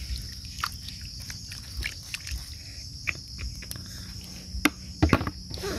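A hand scraping and patting wet sand in a shallow muddy puddle while digging out snails: soft squelches, small splashes and irregular clicks, a little louder about five seconds in, with a steady high-pitched hum in the background.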